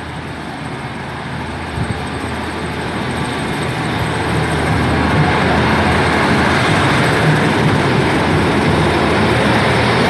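Two coupled Class 153 diesel railcars pulling out, their Cummins diesel engines working under power with a steady hum and rail noise. The sound grows louder over the first half, then holds steady.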